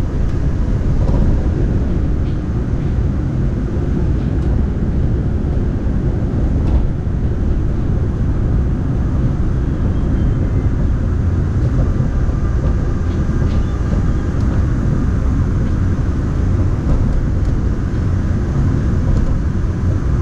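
Daegu Metro Line 3 monorail car in motion, heard from inside the cabin: a steady low running rumble that holds an even level throughout.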